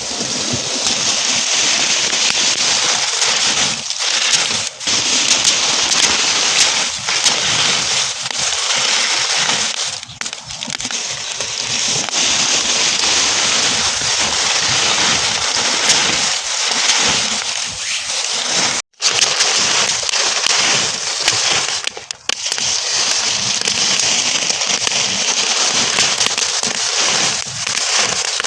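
Burning straw crackling: a dense, continuous stream of small pops and crackles. The sound cuts out for an instant about two-thirds of the way through.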